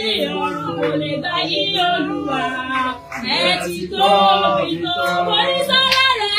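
Several voices singing at once, led by a woman's loud, impassioned voice, with notes that slide up and down.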